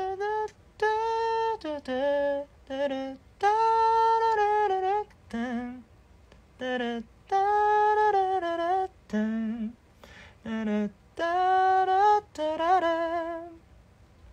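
A man humming a slow wordless melody in a fairly high register, in short held phrases with brief breaths between them, some notes wavering with vibrato near the end.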